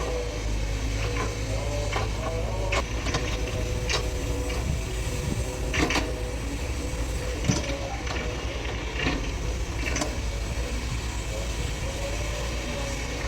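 SANY hydraulic excavator's diesel engine running under load with a wavering hydraulic whine, and a series of sharp knocks and clanks as it digs and moves soil.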